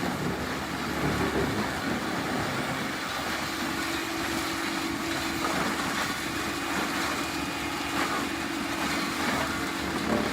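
Heavy stump-grinding machinery running steadily: a CBI 5400 crusher and a Caterpillar 320E excavator at work, with a steady hum setting in about three seconds in.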